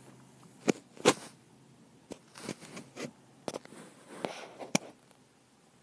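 Handling noise: a scattering of short clicks and knocks with soft rustling as the small plastic toys and the recording device are moved about.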